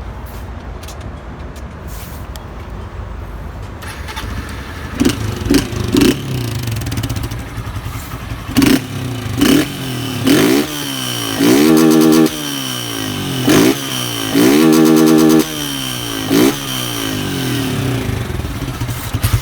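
Honda CG 160 Titan's single-cylinder engine, fitted with a Polimet tin-can ('de lata') aftermarket exhaust, idling and then revved hard in quick throttle blips. About halfway through it is twice held at the top of the revs for about a second, cutting against the rev limiter.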